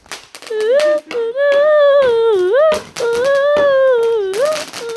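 A high voice holding three long, wavering notes that dip and rise, with a few sharp cracks in between.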